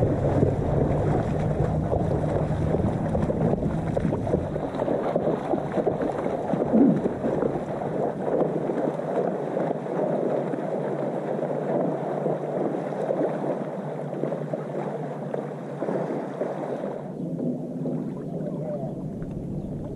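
Lake water splashing and sloshing as a horse and a man wade through the shallows. The sound turns duller about three-quarters of the way through.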